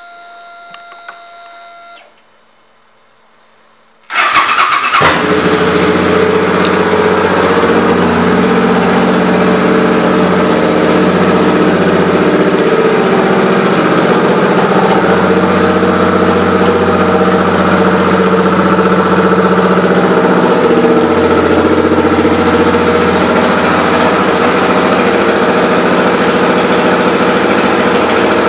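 2005 Suzuki Boulevard C50's 805 cc V-twin with Vance & Hines aftermarket pipes, started about four seconds in and then idling steadily. Before the start there is a steady whine for about two seconds, then a brief lull.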